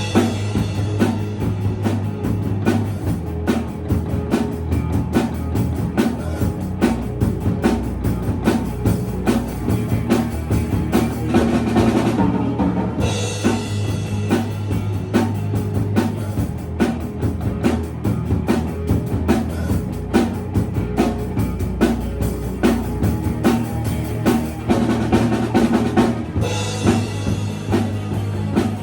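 A band playing a song live, with a drum kit's kick and snare driving a steady beat over sustained low bass notes.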